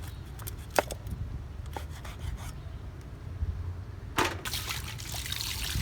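A few scattered knocks, the sharpest about a second in and another about four seconds in, then water starts trickling and pouring and keeps going.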